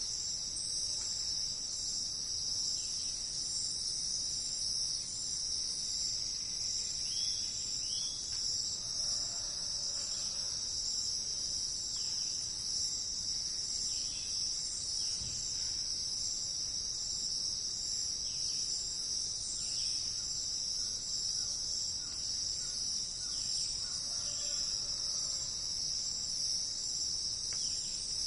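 Forest insect chorus: a steady high-pitched drone that does not let up. Faint short bird calls come through every few seconds.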